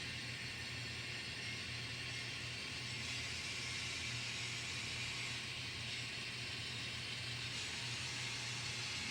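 N scale model train running on the layout: a steady low hum with an even hiss over it, unchanging throughout.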